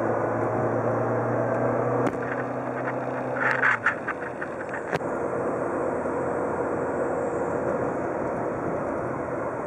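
Car cabin noise while driving at highway speed: steady engine and tyre hum. A sharp click comes about two seconds in, a short burst of rattling clicks follows around three and a half seconds, the low steady hum stops just before four seconds, and one more click comes about five seconds in.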